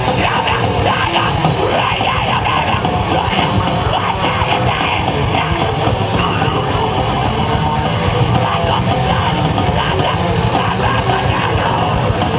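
Loud, steady heavy rock music with electric guitar, played by a band.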